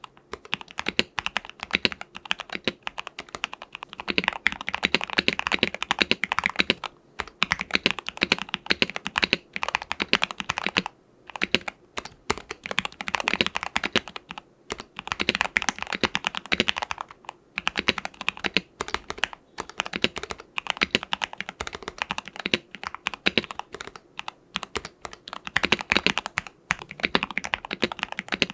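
Fast, continuous typing on an Ikki68 Aurora mechanical keyboard with lubed Gateron Hippo linear switches on an aluminium plate, with PE foam and tempest mods. Dense runs of keystrokes break off for short pauses every few seconds.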